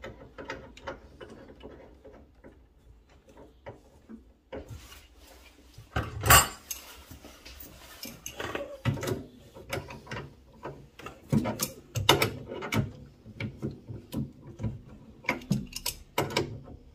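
Irregular clicks, knocks and rattles of hand tools and metal and plastic boiler parts being handled as a replacement part is fitted, with one sharp knock about six seconds in.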